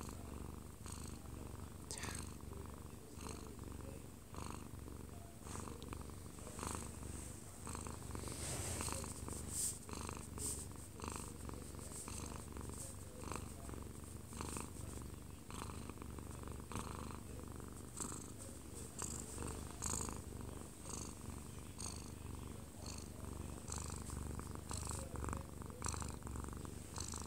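Munchkin cat purring close up, a steady low rumble, with soft irregular rustles over it. It is the contented purr of a drowsy cat being stroked as it dozes off.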